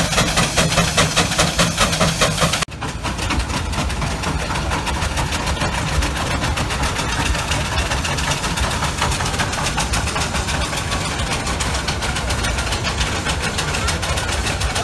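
Several steam traction engines working under a heavy load, their chimney exhaust beating in a rapid, even chuff. A little under three seconds in the sound drops out briefly and gives way to a denser, steadier mix of engines in which the beats blur together.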